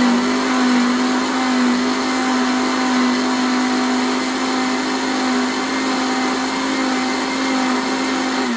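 Countertop blender with a glass jug running at a steady pitch, blending yellow watermelon pieces into juice with no water added. It shuts off right at the end.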